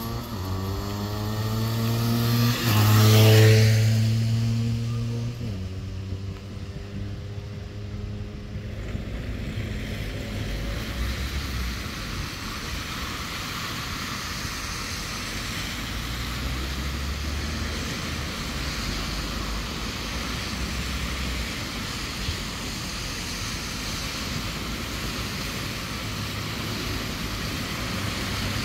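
A motorcycle passes close by. Its engine rises in pitch, is loudest about three seconds in, then drops in pitch and fades. After that, cars drive past on the wet road with a steady tyre hiss.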